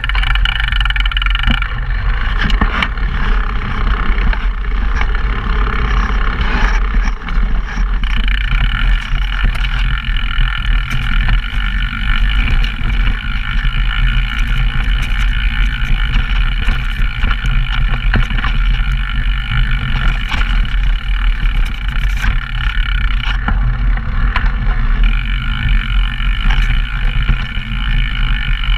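Downhill mountain bike running down a rough dirt trail, heard through action-camera microphones: a constant heavy rumble of wind and ground noise with frequent knocks and rattles from the bike over bumps.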